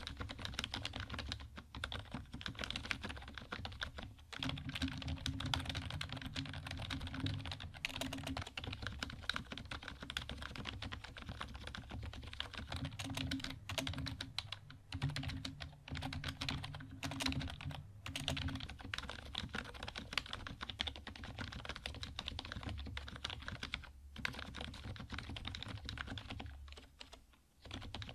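Continuous fast typing on an HP KU-1156 rubber-dome membrane keyboard that has been lubed, a dense run of keystroke clicks with a brief lull near the end.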